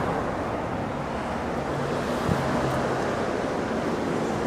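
Steady outdoor rush of wind on the microphone over a low hum of distant traffic, with a single sharp click a little past two seconds in.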